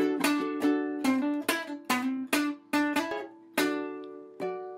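Ukulele strumming chords in an instrumental passage with no singing. The last chord, struck near the end, is left to ring and fade.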